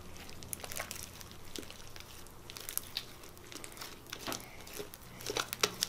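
Slime being kneaded and stretched between the hands to work in yellow food colouring, giving soft, irregular sticky clicks and crackles that get louder near the end. The dye has made the slime a little stickier.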